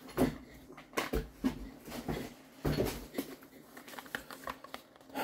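Handling noise as items are taken out of a box: plastic packaging crinkling and things bumping, heard as a string of short, irregular rustles and knocks.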